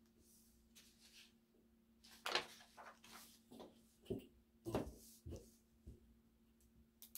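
A run of soft, irregular knocks and rustles, like objects or paper being handled, from about two seconds in to about six seconds in, over a faint steady hum.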